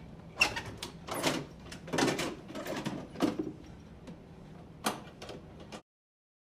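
Clicks and clunks of a Harley-Davidson Road King's hard saddlebags being unlatched, opened and lifted off, several sharp knocks in a row. The sound cuts off suddenly near the end.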